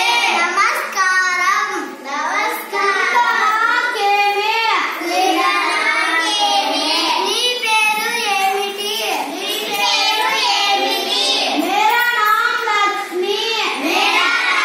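Young boys' voices singing.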